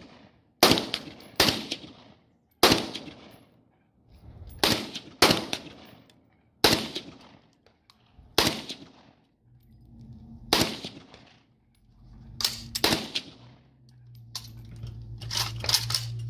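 AK-pattern rifle firing single shots, about a dozen at uneven gaps of one to two seconds, some in quick pairs. A low steady hum comes in near the end.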